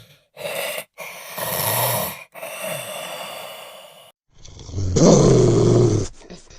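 Werewolf sound effect: a string of separate snarls and growls, edited one after another with short gaps between them. The loudest and longest growl starts a little after four seconds in.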